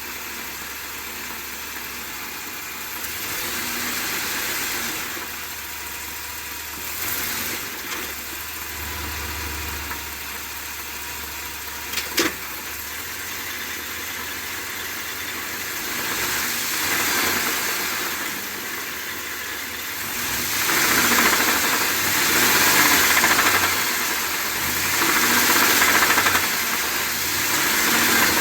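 Ford 7.3-litre Godzilla pushrod gasoline V8 running with an abnormal internal engine noise that a dealer oil pump replacement did not cure; the engine was later replaced. The sound swells louder several times in the second half, with a single sharp click about twelve seconds in.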